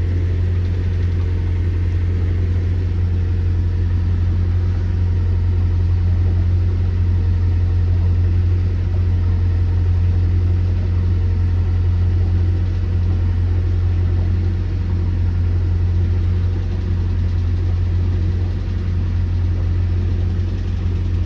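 River cruiser's inboard diesel engine running steadily under way, an even deep drone heard from inside the wheelhouse.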